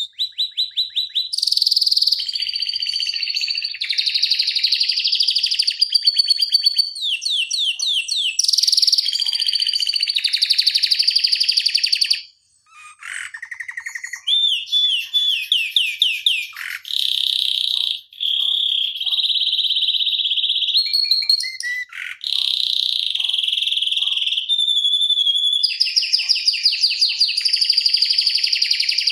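Domestic canary singing a long, continuous song of fast rolling trills and rapidly repeated notes, with quick falling sweeps between phrases; the song breaks off briefly about twelve seconds in.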